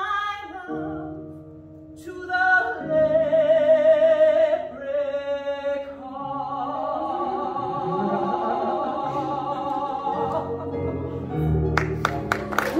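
A woman singing a musical theatre song with instrumental accompaniment, building to a long held note with vibrato. Audience applause breaks out near the end.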